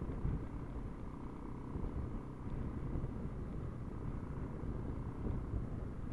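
Husaberg FE 570 single-cylinder four-stroke dirt bike engine running at low, steady revs, heard through a helmet-mounted camera.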